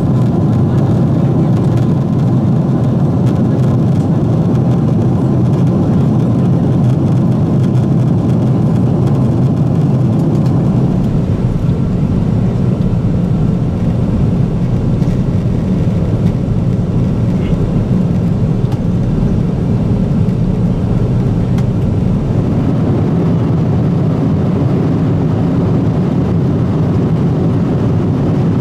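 Steady cabin noise of a Boeing 777-200 in cruise: an even, deep rush of engine and airflow that does not change.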